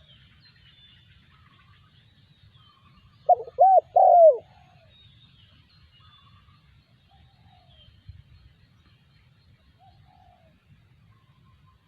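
Spotted dove cooing: one three-note phrase about three seconds in. Faint calls of other small birds sound in the background.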